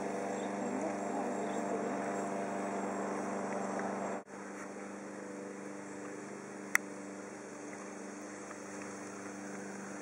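A swarm of honeybees buzzing: a steady, many-toned drone. It drops abruptly in level a little before halfway, and a single sharp click comes about two-thirds of the way through.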